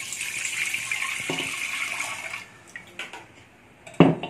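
Fresh milk poured in a steady stream into a stainless steel pot, stopping about two and a half seconds in. A single sharp knock near the end.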